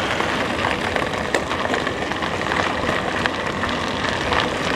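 Steady rushing noise of an electric bike ride along a path, with light crackling: tyres rolling and air moving past the microphone.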